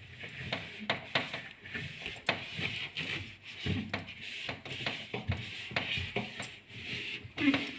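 Wet cloth rubbing over the inside of a refrigerator, with scattered clicks and knocks of handled fridge parts.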